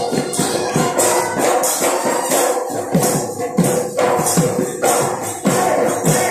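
Bihu dhol drums beating a fast, driving rhythm, with low strokes that dip in pitch, over a steady jingling of metal hand percussion.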